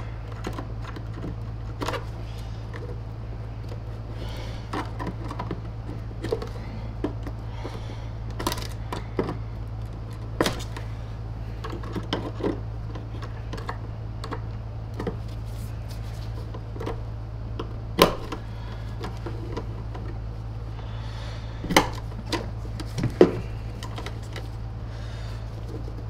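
Irregular small clicks and taps of plastic parts and wiring being handled inside the opened SEBO C3.1 canister vacuum, as its control circuit board is worked loose. A few sharper knocks stand out in the second half, over a steady low hum.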